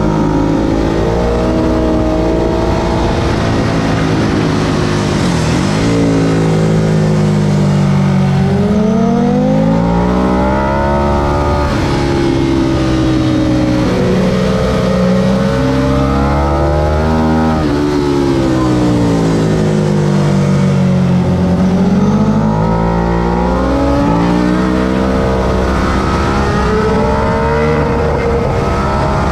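2004 Ducati 999S's L-twin engine being ridden hard on a race track. Its pitch climbs under acceleration and drops sharply on braking and downshifts, several times over.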